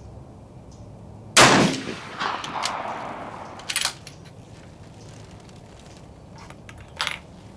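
A single shot from a Gruning Precision bolt-action rifle firing a 175-grain .30-calibre handload, about a second and a half in, the first shot from a cold, clean barrel; the report rings out and echoes for about a second and a half. A couple of sharp metallic clicks follow later.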